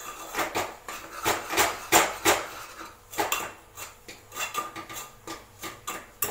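Metal spoon stirring thick flour dough for mudde in an aluminium pot, knocking and scraping against its sides in an irregular run of clinks, several a second.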